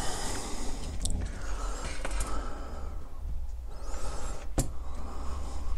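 Handling noise as the camera is picked up and repositioned: rubbing and rustling on the microphone, with a few sharp knocks, the loudest about four and a half seconds in.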